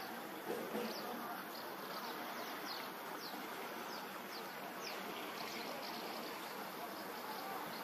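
Outdoor ambience: a steady hiss with short, high, falling chirps repeating one or two times a second, and two soft bumps about half a second in.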